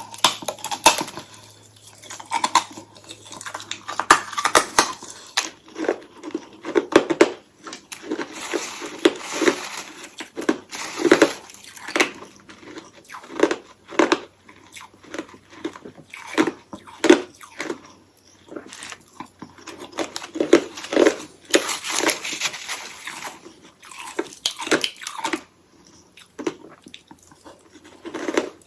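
Someone biting and chewing hollow ice sticks coated in powdery freezer frost: a long run of irregular crunches, with brief pauses between bites.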